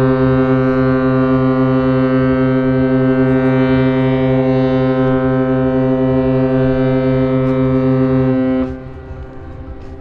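Ship's horn of the cruise ship AIDAprima sounding a greeting: one long, steady, deep blast that cuts off about eight and a half seconds in.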